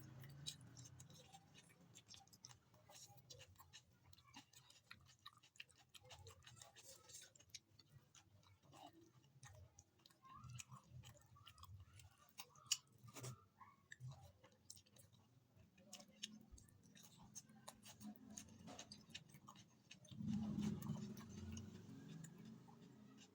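Close-miked chewing and small wet mouth clicks of someone eating rice and curry, with a sharper tick about 13 seconds in.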